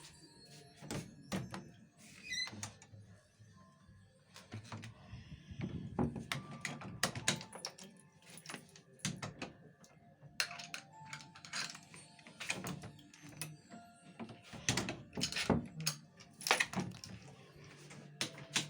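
Irregular knocks, clicks and clattering, some in quick clusters, over a steady low hum.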